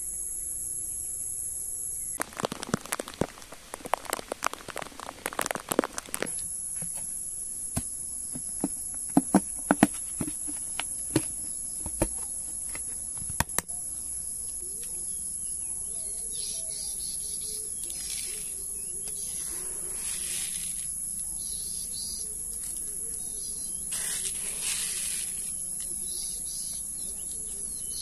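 Steady high chirring of field insects. Over it come bursts of clicking and rattling from granular fertilizer being scooped and handled: a dense clatter about two seconds in, sharp clicks around ten seconds in, and softer rustles later.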